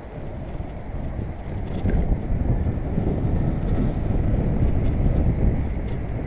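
Wind buffeting the microphone of a camera on a moving bicycle: a steady, dense, low rumble, with a few faint ticks.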